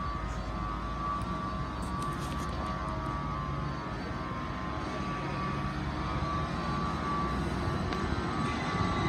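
Stationary trains idling at a station platform: a steady low engine rumble with a thin, steady high whine above it.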